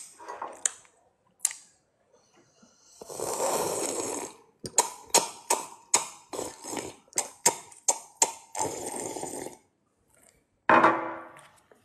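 A run of comic sound effects: a long noisy burst, then a quick string of sharp hits at about four a second, another noisy burst, and a last loud one near the end.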